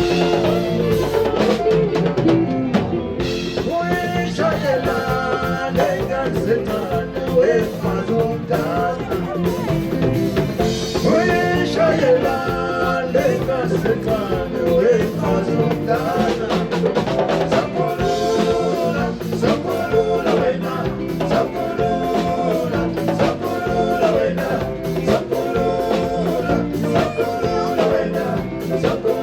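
South African band music: singing voices over a steady drum-kit beat.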